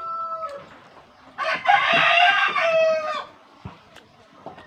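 A rooster crowing: a fainter crow ends about half a second in, then a loud crow starts about a second and a half in, lasts nearly two seconds and drops in pitch at its end.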